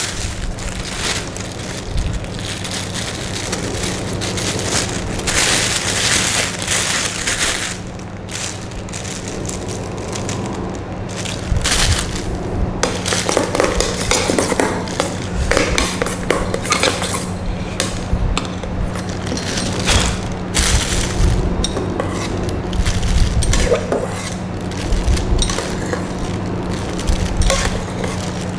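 Plastic piping bag crinkling and rustling in gloved hands as it is handled and loaded with a metal piping nozzle, in irregular crackling bursts, over a steady low hum.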